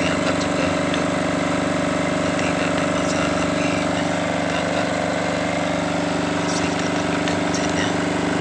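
Diesel engine of a silent generator set running steadily at an even speed, with a few faint ticks over it.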